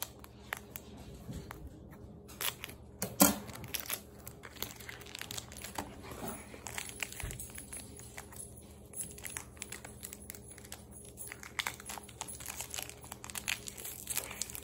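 Foil Pokémon booster pack wrapper being cut with scissors and then crinkled and torn open by hand, in irregular crackles that grow busier in the second half, with one sharp click about three seconds in.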